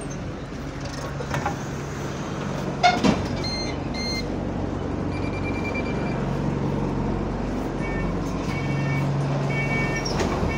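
Diesel engine of Go-Ahead London bus SE99 idling with a steady low hum. A loud knock comes just before 3 s, two short electronic beeps about a second later, and a held beep around 5 s. From about 8 s a run of repeated short beeps sounds from the bus.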